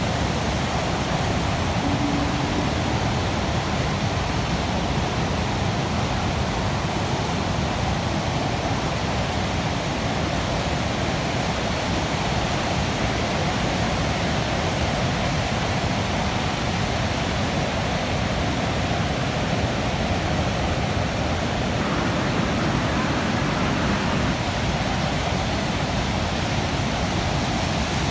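Rough sea with big waves breaking: a steady, even rush of surf noise with no separate crashes standing out.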